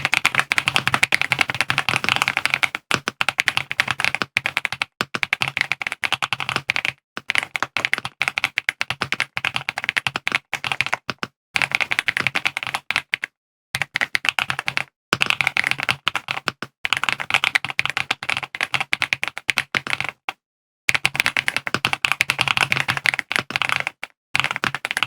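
AULA F99 gasket-mounted mechanical keyboard with LEOBOG Green linear switches (POM stems) being typed on fast: dense runs of key strokes, broken every few seconds by short, abrupt silences.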